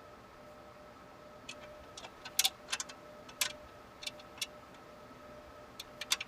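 Small screws being handled and started by hand into a computer power supply's mounting holes in a metal case: a scattering of light metallic clicks and ticks, thickest in the middle, over a faint steady hum.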